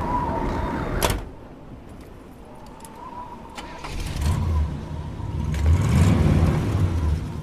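Sound-effect intro to a music mashup: a sharp click about a second in, then a low rumble that swells in uneven pulses from about four seconds in, over a faint steady high tone.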